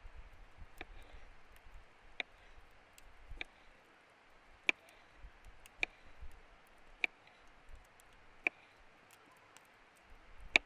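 A series of sharp, short clicks, roughly one a second, over a low background.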